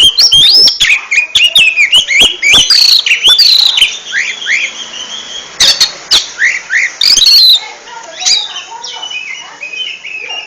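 Oriental magpie-robin (kacer) singing a fast, varied song of quick rising and falling whistles and chirps, broken by many sharp, loud clicks.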